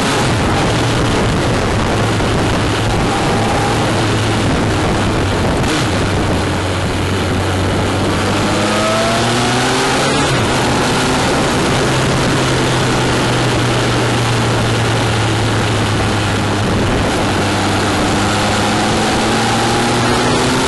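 Honda CBF1000GT motorcycle riding at speed: a steady rush of wind and road noise over its inline-four engine, which climbs in pitch as it accelerates, twice in the second half.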